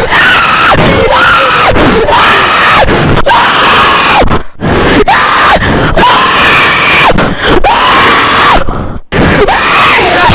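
Loud screaming of panicked people: a string of shrieks, each falling in pitch at its end, broken by two short gaps about four and a half and nine seconds in.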